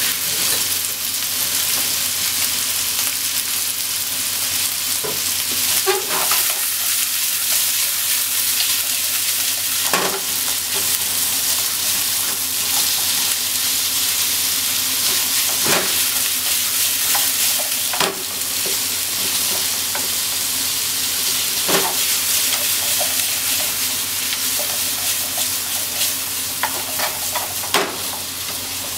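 Pork belly and sliced onion sizzling steadily in a frying pan, with a few short knocks and scrapes as wooden chopsticks stir them against the pan.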